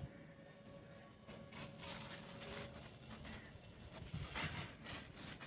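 Hand pressure sprayer misting water over young potted plants in a series of short hissing bursts.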